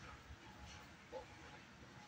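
Near silence: quiet room tone, with one faint, short sound a little past a second in.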